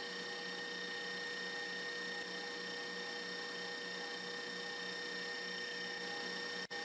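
Stand mixer running steadily, its whisk beating egg whites with sugar into meringue: a steady motor hum and whine with a faint regular pulse. The sound cuts out for an instant near the end.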